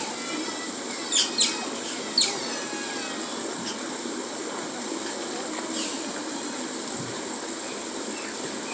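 Asian small-clawed otters giving short, high-pitched chirps that fall in pitch: three close together a second or two in, and one more near six seconds, over steady background noise.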